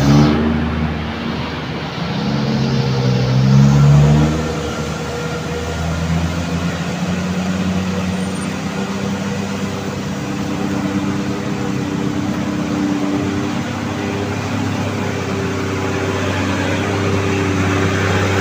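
Heavy trucks' diesel engines climbing a steep hairpin under load, rising in pitch for the first few seconds as one revs, then running steadily with traffic noise, growing a little louder near the end as a truck comes closer.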